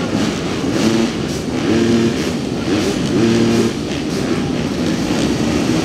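Dirt-bike engines racing on a motocross track, revving up and easing off about once a second as the riders work the throttle.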